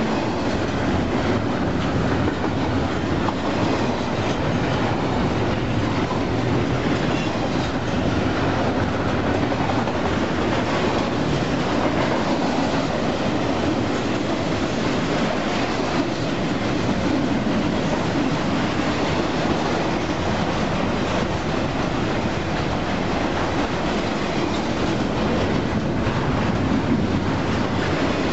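Double-stack intermodal container cars of a freight train rolling past at speed: a steady, loud rumble of steel wheels on the rails.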